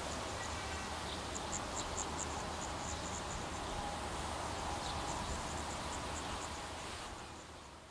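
Insects chirping in short high repeated notes over a steady low rumble and noise haze; everything fades out near the end.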